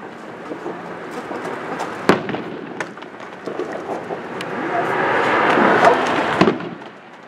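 Fireworks popping and crackling, with a single sharp bang about two seconds in, then a swelling crackling hiss that cuts off suddenly about a second before the end.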